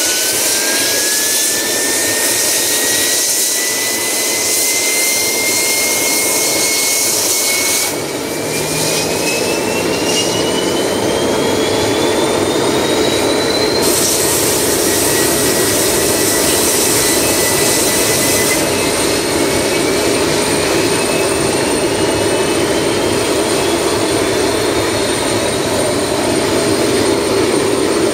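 Northrop F-5E Tiger II's twin J85 turbojets starting on external air and spooling up: a loud steady jet roar with a whine that climbs in pitch, a fresh climb starting about eight seconds in and another a little under twenty seconds in.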